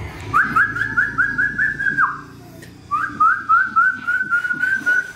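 A person whistling in two quick runs of short rising notes, about seven in each, with the second run ending on a held note.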